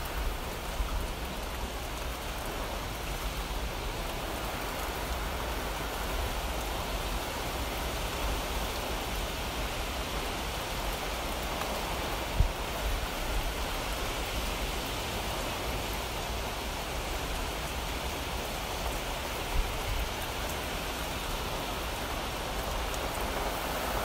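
Steady rain falling: an even hiss with no let-up. A few short, low thumps stand out, most clearly about twelve seconds in and again near twenty seconds.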